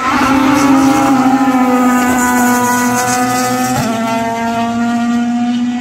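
Classic touring cars' engines running hard at high revs as the cars race past, with a short break and step in the engine note about four seconds in.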